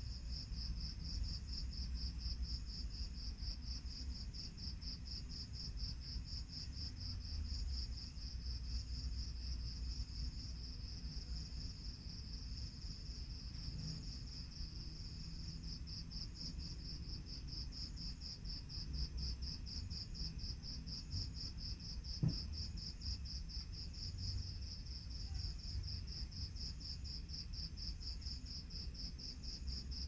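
Crickets trilling in a steady, high, evenly pulsing night chorus over a low rumble, with a single short knock about two-thirds of the way through.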